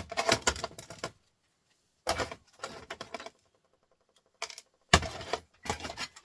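Small metal scrap parts such as springs and stainless steel pieces clinking and rattling as they are handled and dropped, in several short bursts with quiet gaps between.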